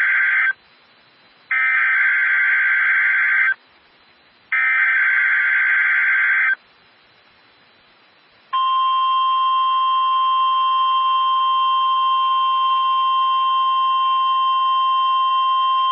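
A NOAA Weather Radio SAME header: the end of one burst of digital warbling data, then two more, each about two seconds long with a second's gap between them. About two seconds later comes the 1050 Hz weather radio alert tone, one loud steady tone that keeps going.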